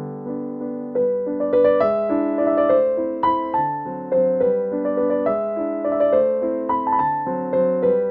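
Background piano music: held chords, then a gentle melody of separate notes that strike and fade, several a second, from about a second in.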